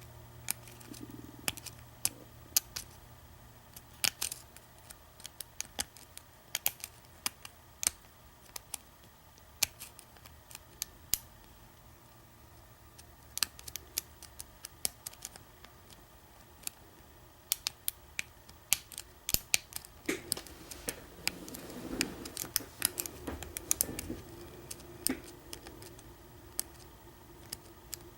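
Lock pick and tension wrench working in an American 1100 padlock's pin-tumbler keyway: irregular sharp metallic clicks as the pins are probed and set one at a time. Brief handling and rubbing of the lock comes about two-thirds of the way through.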